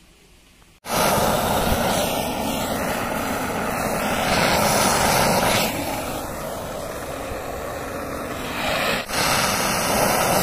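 Handheld butane gas torch burning with a loud, steady rushing hiss. It starts suddenly about a second in and is somewhat quieter for a few seconds past the middle.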